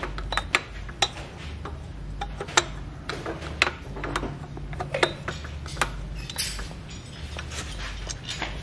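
Irregular metallic clicks and clinks of hands and tools working on an old Honda motorcycle engine, over a low hum.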